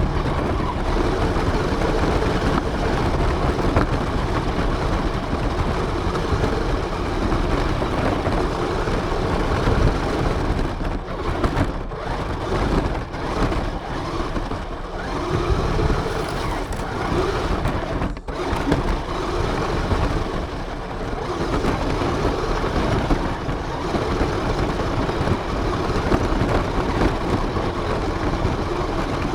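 Radio-controlled car driving, heard from its onboard camera: a steady, loud rush of motor and wheel noise, with a few brief drops partway through.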